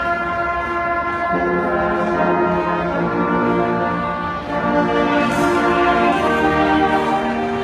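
High school concert band playing live, the brass holding full sustained chords that change about a second in and again around the middle.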